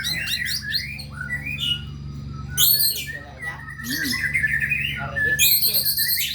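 White-rumped shama (murai batu) singing: a fast, varied run of whistled phrases and chirps, broken by harsh, raspy bursts about two and a half seconds in and again near the end.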